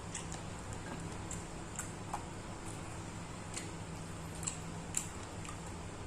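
Eating sounds: scattered small clicks and smacks of chewing, about eight over a few seconds, over a steady low hum.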